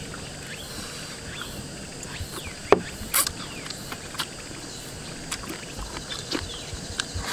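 Close eating sounds of braised chicken feet being chewed and sucked off the bone, with scattered sharp clicks of chopsticks on a bowl, the sharpest about three seconds in. A faint, steady high chirring of insects runs underneath.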